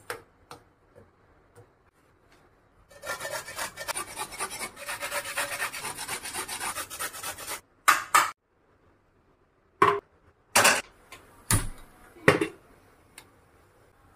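Dried coconut being grated on a stainless-steel hand grater: a dense rasping scrape of rapid strokes for about four and a half seconds. It is followed by half a dozen separate sharp knocks.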